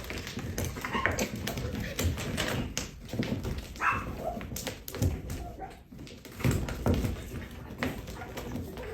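Cats fighting: short yowls and cries mixed with many quick scuffling knocks and thumps.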